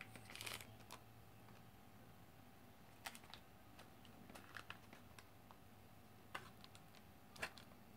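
Near silence, with faint scattered clicks and light scrapes of a metal spoon spreading thick chocolate cake batter in a parchment-lined loaf pan.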